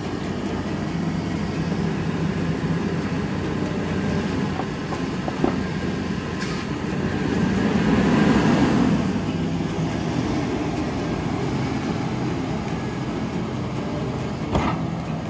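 GMC Savana conversion van's engine running, a steady low hum that swells loudest about eight seconds in. A single sharp knock near the end.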